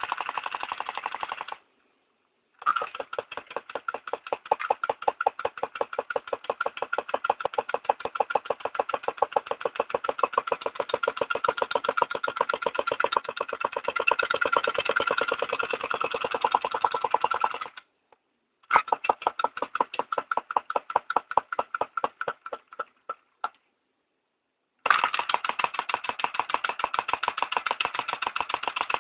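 Small homemade flame eater (flame-licker) engine running with a rapid, even knocking beat. The sound cuts out completely for about a second three times.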